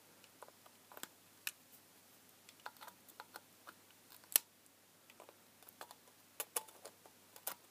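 Side cutters clicking and snipping as they pick at the heat shrink sleeve and cement around the base of a glass LED filament lamp: scattered small sharp clicks, with one louder snap about four and a half seconds in.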